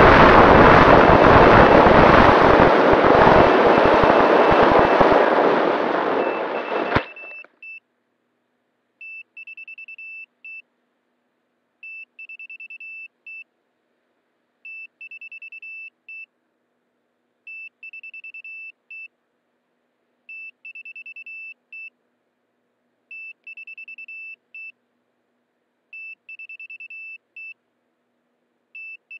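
Wind rush and electric motor noise on an AR900 flying wing's onboard camera during low, fast flight. About seven seconds in a sharp knock cuts it off as the plane comes down and the motor stops. After that, an electronic beeper on the downed model sounds short bursts of rapid high beeps, about one burst every three seconds.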